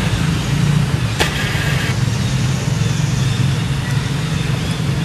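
Steady low engine hum, like a motor vehicle running, with a single click about a second in followed by a short hiss.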